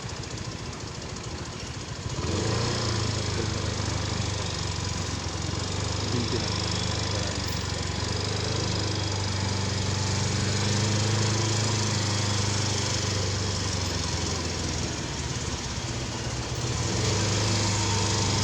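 A vehicle engine running steadily with a low drone, which starts up louder about two seconds in.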